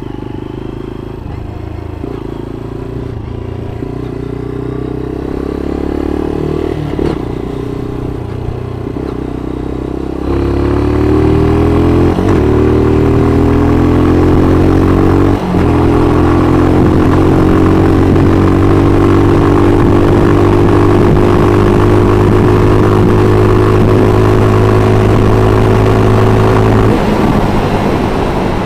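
Motorcycle engine under way: pulling at lower revs at first, then accelerating harder about a third of the way in with a brief break for a gear change, holding a steady cruising speed, and easing off near the end.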